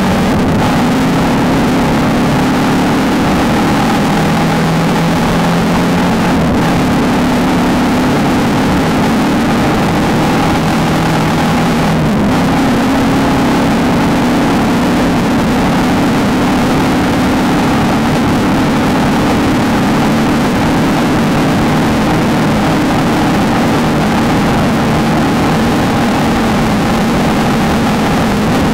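Desert off-road race car's engine running hard and steadily at speed, its note changing pitch a few times, most plainly about twelve seconds in.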